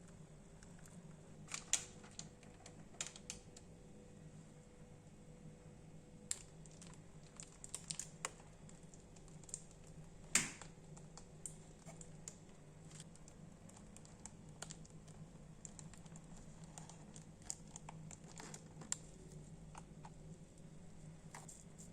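Scattered light clicks and taps of kitchen handling, irregular and sharp, with a louder knock about ten seconds in, over a faint steady hum.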